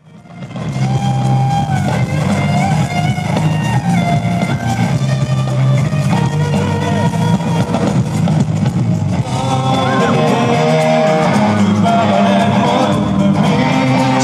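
Live rock band playing, electric guitar over a heavy bass line, fading in over the first second.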